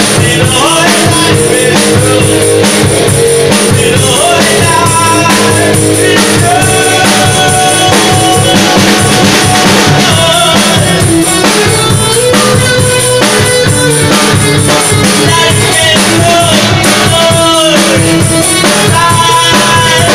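Live rock band playing: a male vocalist singing a melody over drum kit and electric guitar, loud and steady throughout.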